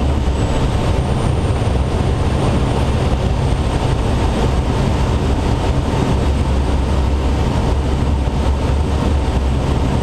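Steady rush of air in the cockpit of a Schweizer 2-33A glider on aerotow, with heavy low wind rumble buffeting the microphone.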